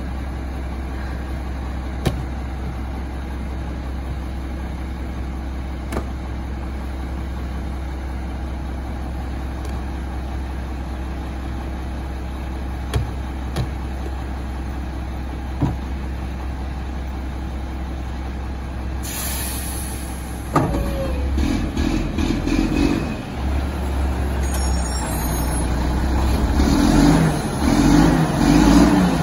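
Mack garbage truck's diesel engine idling steadily, with a few sharp knocks as carts are tipped into its Curotto Can. About two-thirds of the way in, a hiss starts and the engine revs up and grows louder as it drives the hydraulic arms lifting the Curotto Can over the cab.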